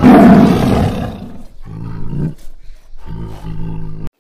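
A large animal roaring: one loud roar, then two shorter, lower calls, the last of them cut off suddenly.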